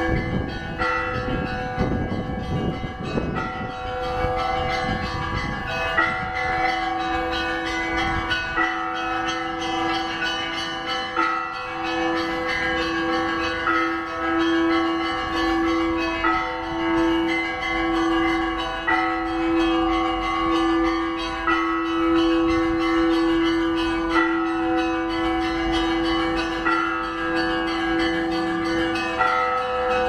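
Russian Orthodox church bells ringing a continuous peal (zvon): several smaller bells are struck again and again in a repeating pattern over the steady hum of larger bells.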